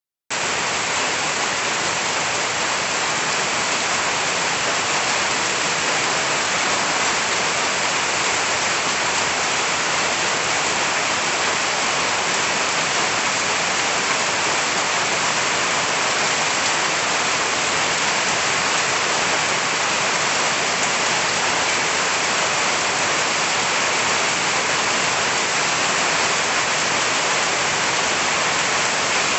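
Heavy rain falling steadily on forest trees and broad leaves, a dense, even hiss.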